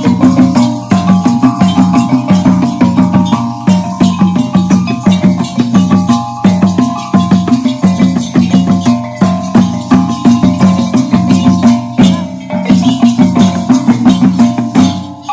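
Loud music with a fast, steady percussion rhythm under repeated melodic notes.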